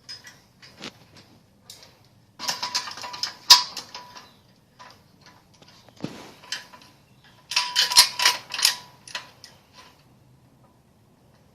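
Metal hand tools clicking and rattling: a wrench and socket being worked on a fastener in two bursts of quick clicks, each about two seconds long, with a few single clicks between them.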